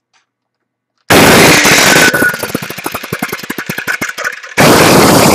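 Electric twin-blade wall chaser (groove cutter) with diamond discs, switched on and running free with no load, very loud. About a second in it starts abruptly and runs for about a second. It then drops into a fast, fading rattle as it runs down, and is switched on again near the end.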